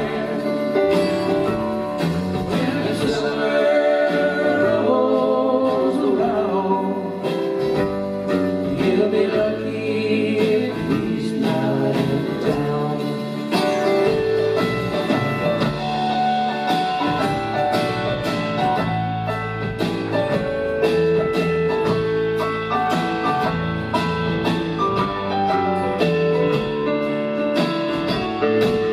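Live country-rock band playing a song: acoustic guitar, electric bass, drums and keyboard, with singing.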